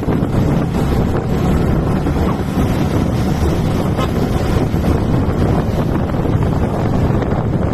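Wind buffeting the microphone: a loud, steady, low rumbling noise.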